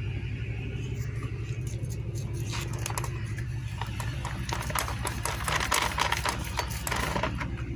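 Metal tools and engine parts clinking and knocking during a motorcycle engine teardown, the clatter starting about two and a half seconds in and getting busier after that, over a steady low hum.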